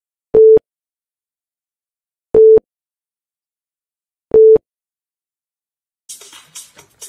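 Countdown timer beeping: three short, identical mid-pitched beeps, one every two seconds, one per number ticking down.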